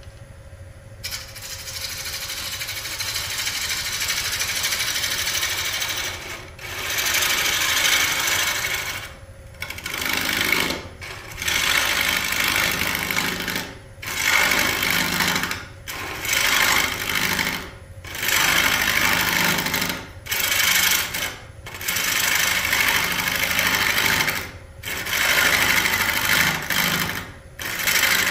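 Wood lathe spinning an off-centre Nargusta scoop blank at speed while a hand-held turning tool cuts it: a fast, chattering cut of interrupted contact. It comes as a string of passes, each a second or two long, with short breaks between them.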